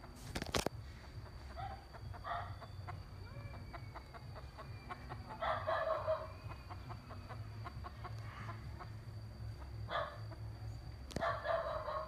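Rooster clucking and crowing: short calls here and there, with longer calls about halfway through and again near the end. A sharp knock comes just after the start.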